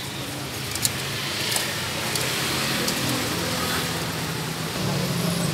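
Street traffic passing: a steady rumble of engines and tyres, with a few faint clicks about a second in.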